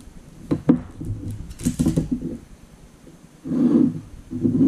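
A knife clicking and scraping on a plate while a chocolate bar is cut into pieces, with a few sharp clicks about half a second in and a louder low scrape near the end.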